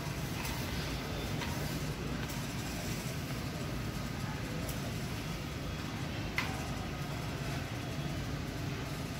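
Supermarket background noise: a steady low rumble with faint scattered clicks, and one sharp click about six and a half seconds in.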